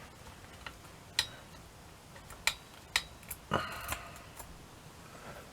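A few light, irregular clicks and taps of small metal clock parts being handled as tiny washers are fitted onto a torsion clock's movement.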